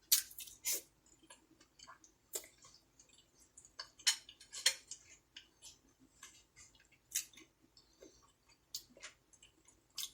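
Eating from a dish: irregular sharp clicks and taps of a spoon against the bowl, a dozen or so spread unevenly, the loudest near the start and about four seconds in.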